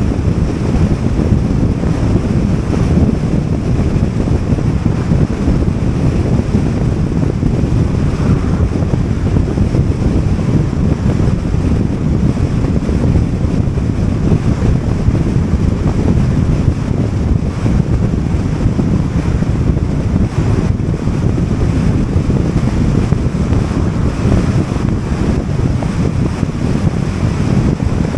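Steady wind rush and road rumble from a car driving at highway speed, with wind buffeting the microphone.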